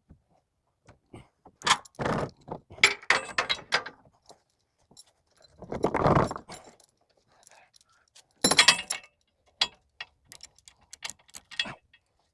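Metal chain rattling and clinking as it is handled, with three louder rattling, scraping bursts about two, six and eight and a half seconds in.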